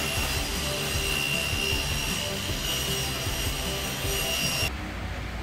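Table saw running steadily with a high whine while a board is fed through the blade. The sound turns duller abruptly near the end.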